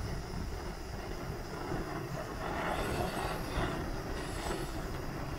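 MSR Pocket Rocket 2 gas canister stove burning with a steady rushing sound under a pot of water.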